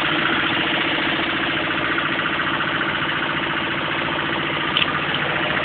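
Engine driving a modified compressor, running steadily with an even mechanical drone; a brief click sounds near the end.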